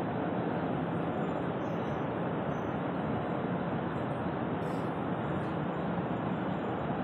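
Belt conveyor running over its steel troughing idler rollers, a steady, unbroken mechanical noise.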